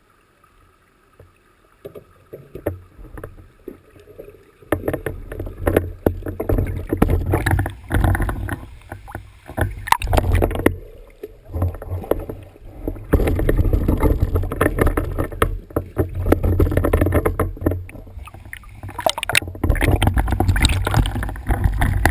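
Heavy wind rumble buffeting a mountain biker's camera microphone while riding, mixed with rattles and knocks from the rough trail. It starts about five seconds in and comes and goes, with short lulls.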